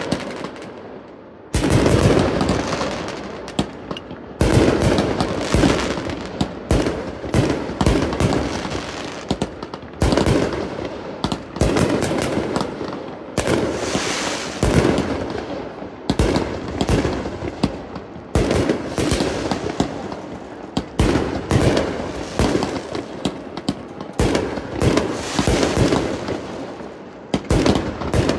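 1.4G consumer aerial fireworks firing in quick succession: sharp launch bangs and bursting breaks every second or two, each trailing off into crackling, with the shots coming more densely later on.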